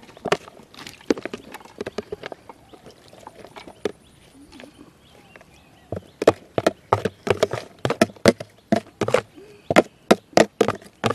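Crunchy chewing close to the microphone, most likely jellyfish salad being eaten. After a few scattered quieter clicks, a fast run of sharp crunches at about three a second starts about halfway through.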